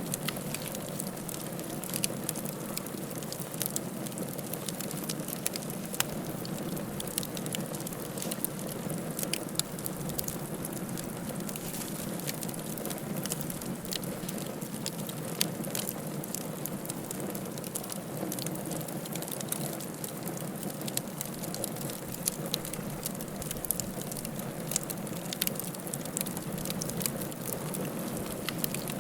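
Wood fire burning steadily in a fireplace, with a constant low rush and frequent irregular sharp crackles and pops.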